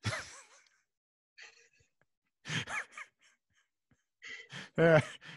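Two men laughing quietly: short breathy chuckles in a few bursts, with quiet gaps between.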